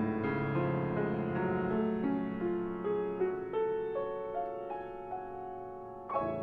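Solo piano playing a prelude: a line of held notes climbing in pitch over the first few seconds and growing softer, then a loud chord struck just before the end.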